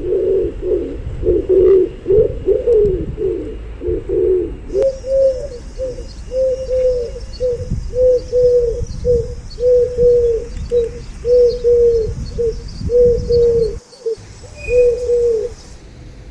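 Pigeons cooing in repeated low, throaty coos. About five seconds in, they settle into a steady run of short, even coos, roughly two a second, over a low rumble.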